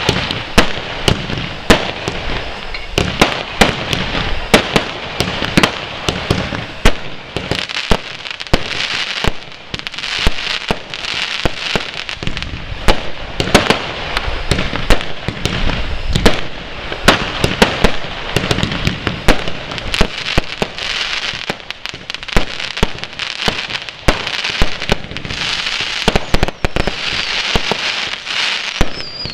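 Fireworks display: a dense run of sharp bangs and crackles, several a second, over a steady fizzing crackle.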